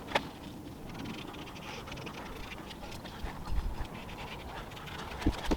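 Faint scratching and handling sounds of marking out parts on a 6 mm steel sheet, with a sharp click near the start and end and a few soft knocks a little past halfway.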